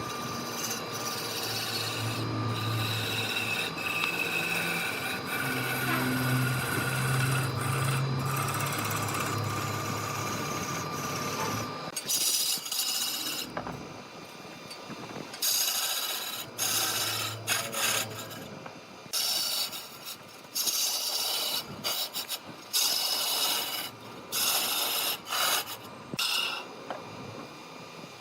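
Large wood lathe running with a tool working the spinning wood. For the first dozen seconds the contact is continuous over a low motor hum; after that it comes in short, separate strokes with gaps between them.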